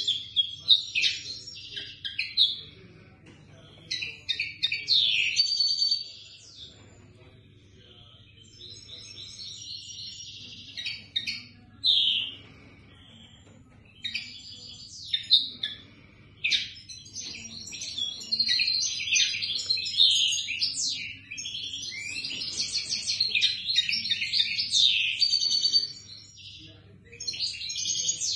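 Small caged finches singing: phrases of rapid, high chirps and trills, broken by pauses of a second or two.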